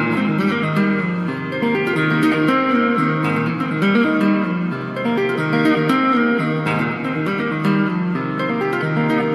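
Electric guitar in F-A-C-G-C-E tuning played through an EarthQuaker Devices Astral Destiny reverb pedal in its Abyss mode, a plain reverb. Clean picked and tapped notes in a flowing math-rock pattern ring into one another under the reverb.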